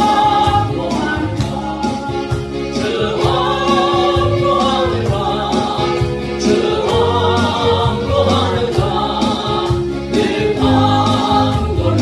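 Choir singing a gospel song with instrumental accompaniment, in long held notes.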